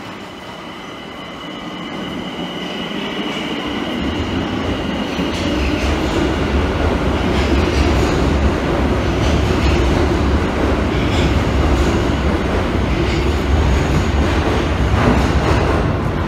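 Tokyo Metro Ginza Line 1000-series subway train pulling out and accelerating past along the platform. A thin whine comes in the first few seconds, then a low rumble of wheels and motors builds and stays loud, with scattered clicks of wheels over the rail joints.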